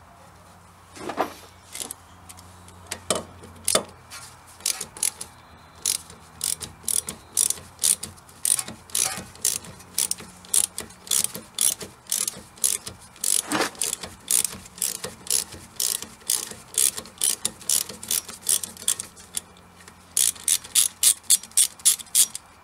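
Socket ratchet clicking as the rear brake caliper bolts are undone: a steady run of sharp clicks about two to three a second, quickening near the end, with a few duller clunks of the tool in between.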